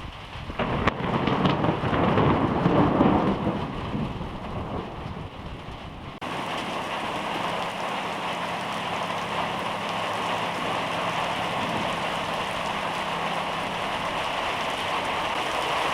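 A thunderclap from a nearby lightning strike, starting with a crack about half a second in and rolling into a loud rumble that fades over the next few seconds. About six seconds in the sound changes abruptly to the steady hiss of heavy rain falling.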